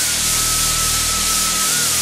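Hue-Tronic optical colour sorter running while it sorts chickpeas: a steady loud hiss from the stream of beans and the machine, over a low electrical hum, with a thin high whine that wavers slightly in pitch.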